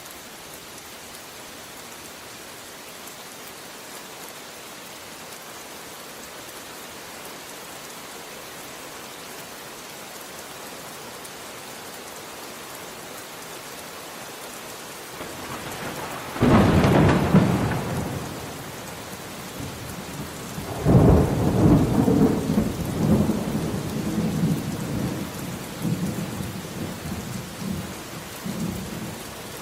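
Steady rain falling, then a sharp thunderclap about halfway through, followed a few seconds later by a longer roll of thunder that rumbles on and slowly fades.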